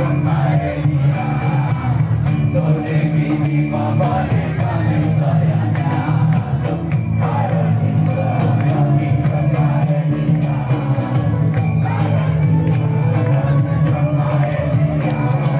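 Live band music: acoustic guitar, bass guitar and drums, with bright metallic percussion struck in a steady repeating beat over the top. No singing is picked out; the passage is instrumental.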